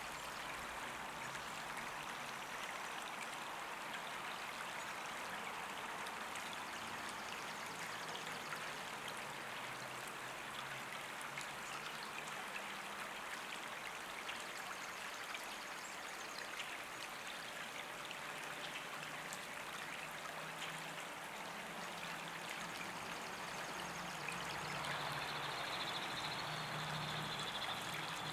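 A steady rushing hiss with no distinct events, joined about 25 seconds in by a thin high steady tone and a low hum.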